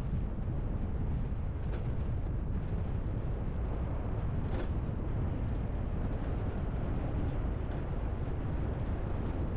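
Steady rush of wind over the microphone with rolling noise from the pavement on a fast downhill ride, with a couple of faint clicks about two and four and a half seconds in.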